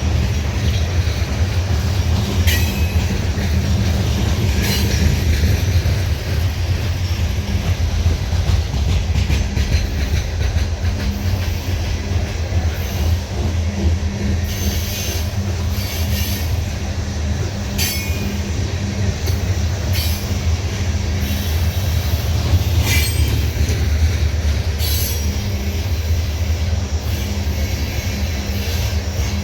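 Loaded coal hopper cars of a CSX freight train rolling past with a steady, heavy low rumble. Short, sharp high-pitched wheel squeals and clicks come every few seconds.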